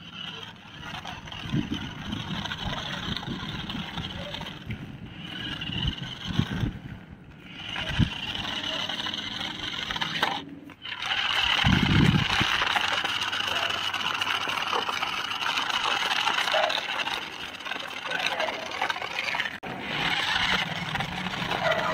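Battery-powered RC stunt car's small electric motors whirring as its plastic wheels run over rough concrete. The sound drops out briefly about three times, and there is a short low thud about halfway through.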